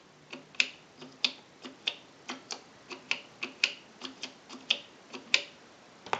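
Payphone keypad buttons being pressed one after another to dial a number: a string of sharp, short clicks at an uneven pace of about three a second.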